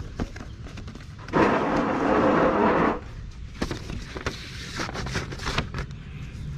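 Vinyl record sleeves and a paper insert being handled and flipped through in a cardboard box, giving scattered light knocks and rustling. The loudest part is a burst of close rustling about a second and a half long, starting about a second and a half in.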